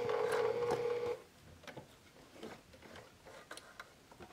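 Sewing machine running steadily at speed, stitching; it stops about a second in, leaving a few faint clicks.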